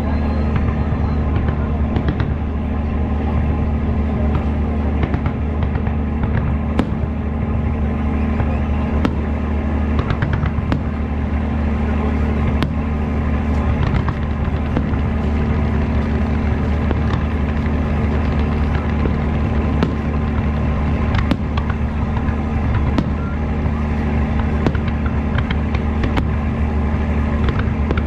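Fireworks display: scattered sharp pops and cracks over a steady, loud low rumble.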